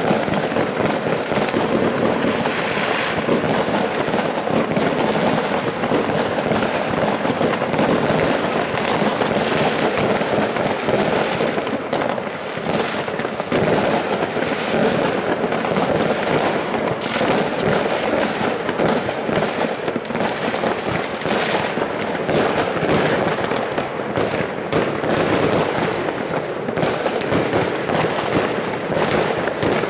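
New Year's fireworks going off all over a city at once, far off. Overlapping bangs, pops and crackles merge into a continuous dense rattle without a break.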